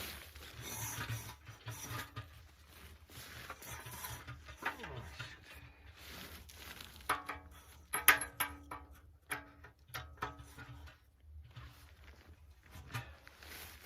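Clicks, knocks and metal scraping of a small tent wood stove being handled and worked into place, with a stretch of ringing, squealing scrapes about seven to ten seconds in, loudest near eight seconds.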